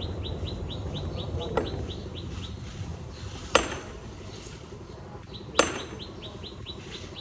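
A metal tool striking something hard on a wall-building site: three sharp knocks with a short metallic ring, about two seconds apart, the first one weaker. A bird chirps quickly, about five short falling notes a second, in two runs.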